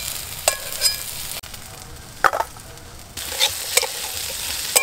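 Cubed vegetables sizzling in hot mustard oil in an aluminium wok, with a spatula stirring and scraping them and several sharp clinks of metal on the pan.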